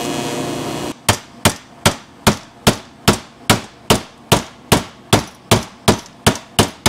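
A hammer tapping on stainless steel exhaust tubing to flatten a seam edge that had pulled away, closing the gap for welding: about fifteen even, ringing metal strikes, roughly two and a half a second. A steady hiss cuts off about a second in, before the tapping starts.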